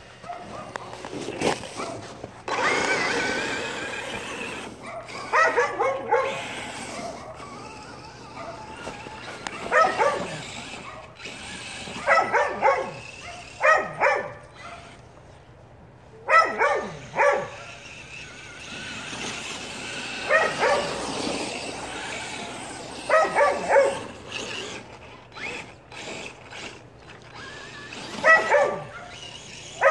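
Dogs barking in short clusters of several barks every few seconds. A stretch of hissing noise comes a few seconds in.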